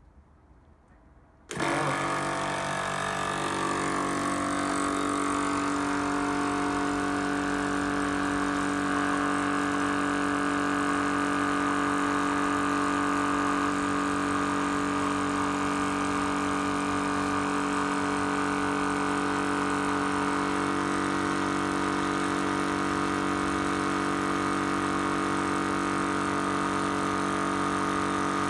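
Zhongyan portable PCP high-pressure air compressor switching on abruptly about a second and a half in, then running with a steady pitched hum as it fills a small air cylinder for an airgun.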